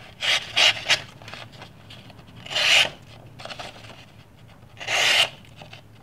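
Freshly sharpened pocket knife blade slicing through a sheet of paper to test the edge: a few quick short cuts about a second in, then one longer slicing stroke near the middle and another near the end.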